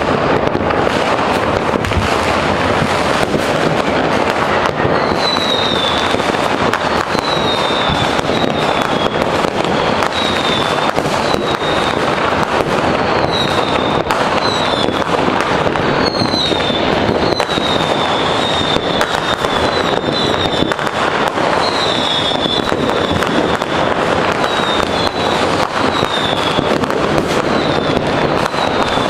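New Year's Eve fireworks going off all around the city: a dense, continuous crackle of bangs and firecrackers near and far. From about five seconds in, short falling whistles sound again and again among the bangs.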